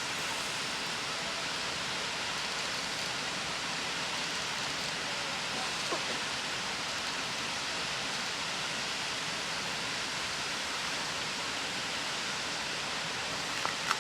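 Steady rush of a nearby waterfall, an even hiss of falling water with no change in level. A faint tick sounds about six seconds in and again near the end.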